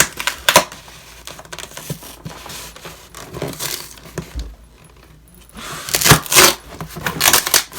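Cardboard shipping box being opened by hand: a few sharp knocks, then loud scraping and rustling of the cardboard flaps near the end.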